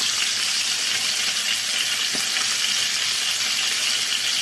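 Whole chicken frying in hot oil in a frying pan: a steady sizzle.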